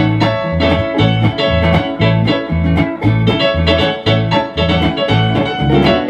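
Country band's instrumental piano break, played on an electric keyboard, over a bass alternating two notes about twice a second in a steady two-beat.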